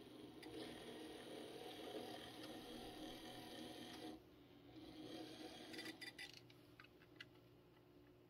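N-scale model diesel locomotive running slowly along the track, its small electric motor whirring faintly; the whir drops away about four seconds in. A few light clicks follow near the end.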